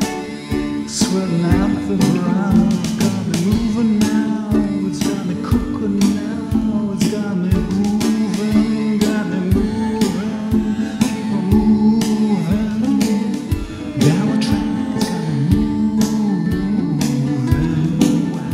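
Blues band music: guitar over a steady drum beat with tambourine.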